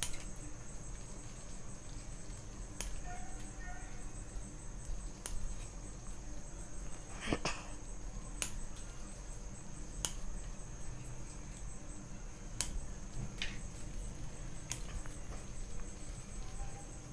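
Bonsai pruning scissors snipping twigs and leaves on a small Streblus asper (sandpaper tree) bonsai: a sharp snip every second or two, about eight in all, with a steady high-pitched tone underneath.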